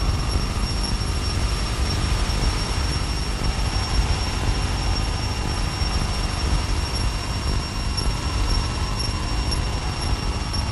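Dense, steady electronic feedback noise with a deep rumble in the low end and a thin high whine running through it.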